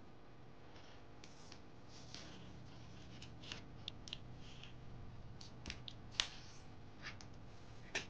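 Origami paper being folded and creased by hand: faint rustling with scattered short crackles as the folds are pressed, the sharpest about six seconds in.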